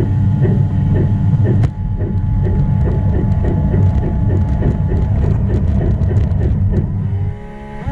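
LGB garden-railway steam locomotive running under power through snow: the sound unit's chuffs beat at about two a second, then quicken to about three a second, over a steady rumble of motor and gearing. Near the end the running noise drops briefly and a short rising tone sounds.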